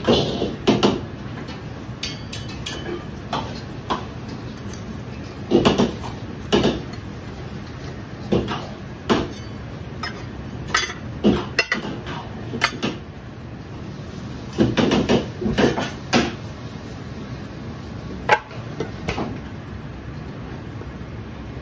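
Metal cooking utensils clanking: a wok ladle and turner knocking against a steel wok and the stainless counter in irregular strokes and short clusters, with one sharp knock near the end, over a steady kitchen background hum.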